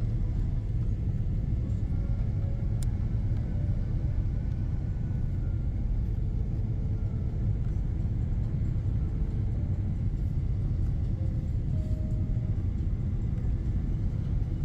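Airliner cabin noise: a steady low rumble of engines and airflow, unchanging throughout.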